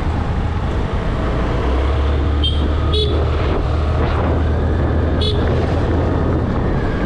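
Wind and running noise on a moving Honda Grazia 125 scooter ride, with a steady low drone through most of it. Three short, high-pitched toots come about two and a half, three and five seconds in.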